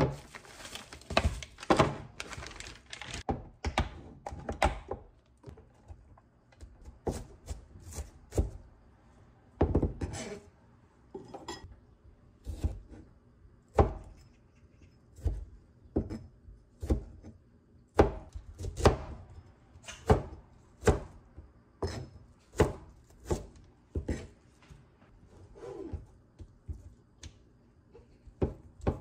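Plastic packaging crinkling for the first few seconds, then a square cleaver chopping cherry tomatoes and ham on a cutting board: sharp knocks of the blade on the board, about one a second.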